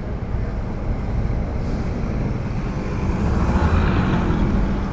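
Steady low engine and road rumble of a car driving slowly down a street, picked up by a camera mounted on the outside of the car's hood, growing louder about three seconds in.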